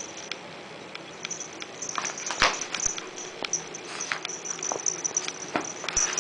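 A kitten scuffling and rolling inside a cardboard multipack sleeve on carpet: cardboard scraping and rustling with scattered knocks. It gets busier about two seconds in, and the loudest knock comes shortly after.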